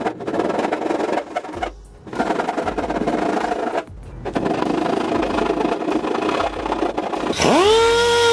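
A hand file rasping back and forth along the edge of a slot in a sheet-aluminium dash panel, in three runs of strokes with short pauses between. Near the end a random orbital sander starts up, its whine rising quickly and settling into a steady hum.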